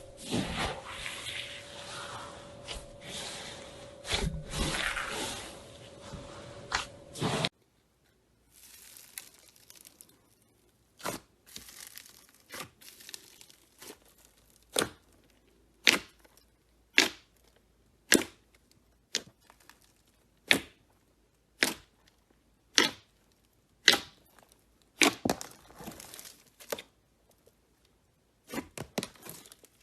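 Slime being handled: dense sticky crackling and squishing at first, then after a cut a run of sharp pops or clicks about once a second.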